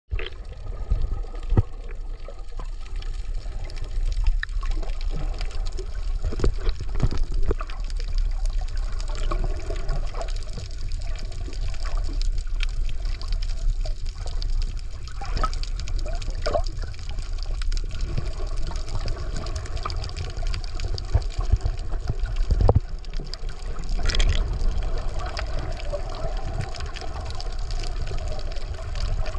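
Muffled underwater sound picked up through a camera in the sea: a steady low rumble of moving water with scattered short clicks and pops.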